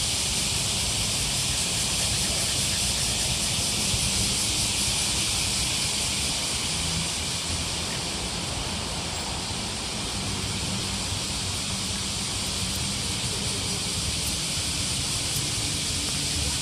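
Steady, even high-pitched hiss over a faint low rumble: outdoor ambience.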